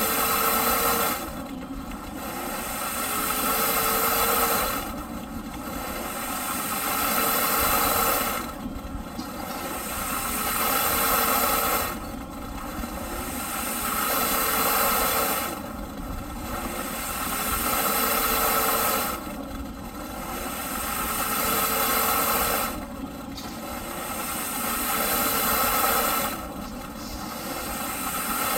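Eureka PowerSpeed vacuum cleaner's motor running in repeating surges: the whine rises in pitch and loudness over about three seconds, then drops off sharply, about every three and a half seconds, eight times over.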